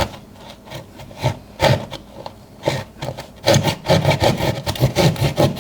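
Hand saw cutting an opening in a wall for an outlet box, with back-and-forth rasping strokes. The strokes are irregular at first and turn into a quick steady run, about four or five a second, from about halfway through.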